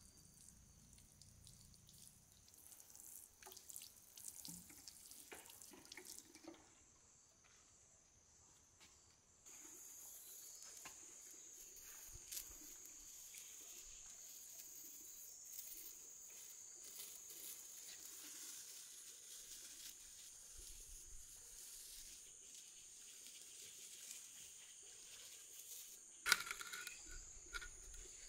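Water sprinkled from a plastic watering can, pattering and splashing onto bricks, for the first several seconds. After a pause, insects chirr steadily, and near the end there is a sharp knock followed by some scraping on the bricks.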